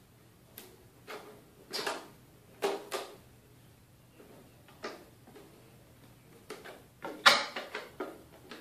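Handling of a plastic stormtrooper armour piece while strips of tape are pulled and pressed onto it: short, irregular rasps and light knocks, the loudest rasp about seven seconds in.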